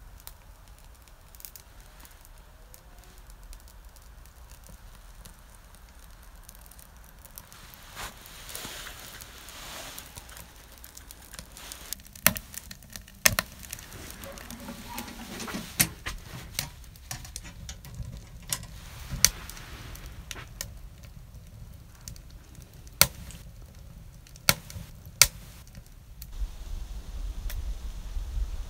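Kindling and split birch catching in a small steel woodstove: a soft rushing hiss as it flares up about eight seconds in, then crackling with sharp pops every second or two. A low wind rumble on the microphone comes in near the end.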